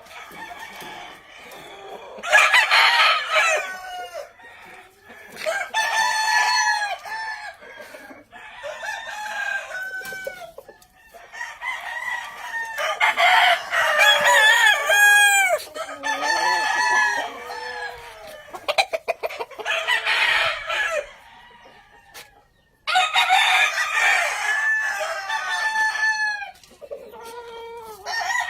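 Several gamefowl roosters crowing in overlapping bouts at different pitches, with clucking between the crows. About two-thirds of the way through there is a quick run of clicks.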